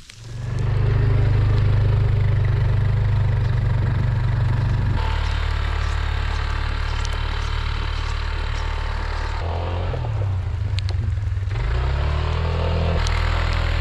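A vehicle engine running steadily under way, its pitch shifting a few times as it changes speed.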